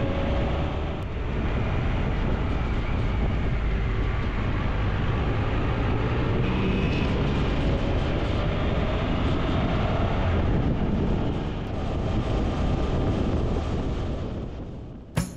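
Motorcycle engine running under way, with heavy wind and road noise on the microphone. Its note rises as it accelerates, briefly near the start and again over several seconds in the middle.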